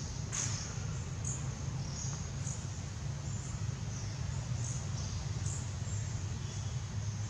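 Outdoor ambience: short, high chirps repeating about once a second over a steady low hum.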